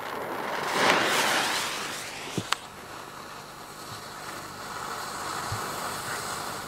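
Hissing of a lit firecracker fuse burning down, louder for about a second near the start, with a single sharp click about two and a half seconds in.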